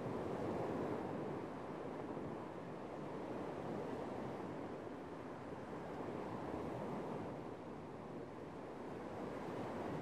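Small sea waves breaking and washing up onto a sandy beach, a steady rushing surf that swells about a second in and again near the end.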